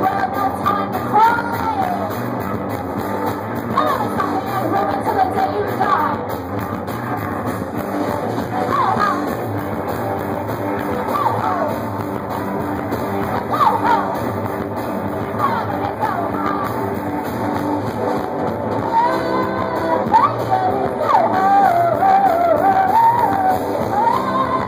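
Live punk-blues rock: a woman singing and yelling over a loud electric guitar.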